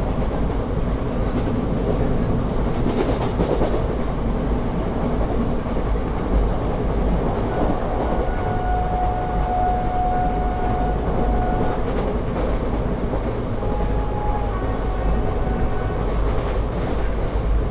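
Steady rumble of a moving passenger train heard from inside the carriage, with wheels clattering over the rail joints. A thin steady whine rises above it for about three seconds midway, and a shorter one follows a few seconds later.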